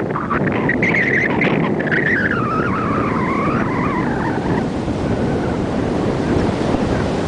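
Wind buffeting the microphone over the rush of water from a moving boat. A wavering high tone rises and falls for a few seconds, starting about a second in.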